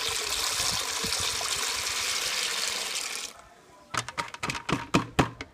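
Dry maize kernels poured from a plastic tub into a bucket of water, a steady rushing splash that stops abruptly after about three seconds. A quick run of sharp clicks and knocks follows near the end.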